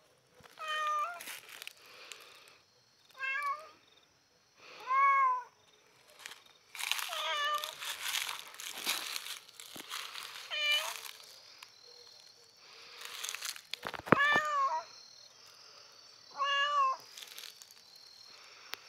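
A black domestic cat meowing repeatedly, about seven meows a couple of seconds apart, each rising then falling in pitch. Brief rustling noises come between the meows.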